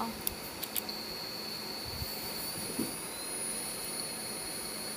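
Laser marking machine engraving a stainless steel plate: a steady high-pitched whine over a constant machine hiss, the whine setting in about a second in after a few light clicks.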